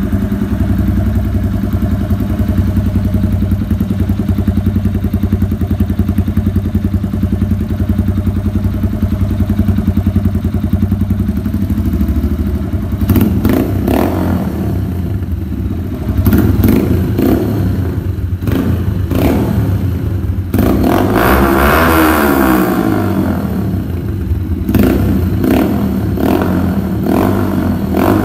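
Yamaha YBR 125G's single-cylinder four-stroke engine, breathing through an aftermarket SC Project-style cut exhaust, idling steadily. About halfway through it is revved in a series of short, sharp throttle blips, with one longer rev that rises and falls.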